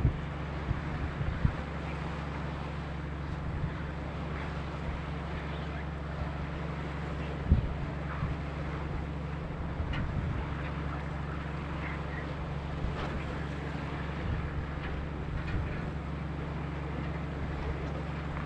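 Steady low drone of a boat's engine, with wind buffeting the microphone in occasional gusts, one stronger gust about seven and a half seconds in.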